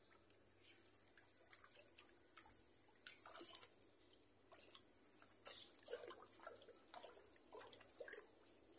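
Faint, irregular sloshing and squelching of waterlogged coconut coir being stirred with a plastic pipe in a tub of water, rinsing out the lime it was soaked in.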